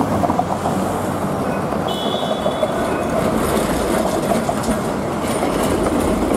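Articulated low-floor tram rolling past on street rails, a steady rumble of wheels on track with a brief high squeal about two seconds in.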